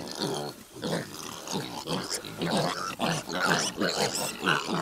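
Kune Kune piglets grunting, a run of short grunts two or three a second.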